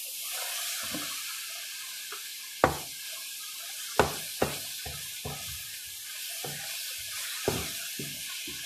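Chicken and vegetables sizzling in a hot stainless steel pot while a wooden spatula stirs them, knocking against the pot at irregular moments, roughly once a second.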